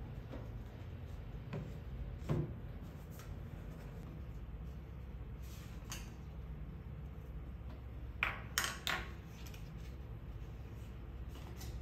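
Cardboard boxes being handled and a small product box opened by hand: a few soft knocks and taps in the first half, then a quick cluster of crisp cardboard scrapes about eight seconds in, over a low steady room hum.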